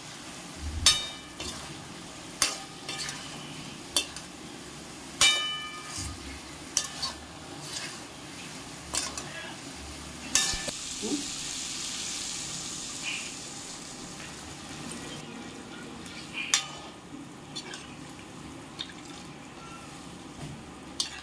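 Steel ladle stirring chunks of elephant yam (suran) through spiced masala in an aluminium kadhai, knocking against the pan every second or two with a short metallic ring, over a low sizzle of frying. About ten seconds in a louder hiss rises for several seconds as water goes into the hot pan to make the gravy.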